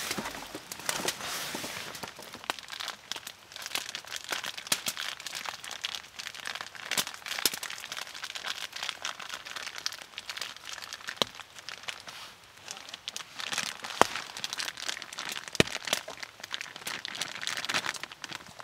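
Crinkling and rustling of something crinkly being handled, with many scattered sharp clicks and snaps.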